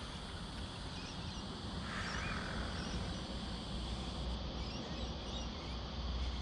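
Steady outdoor background noise with a low rumble, and a few faint bird chirps about two seconds in.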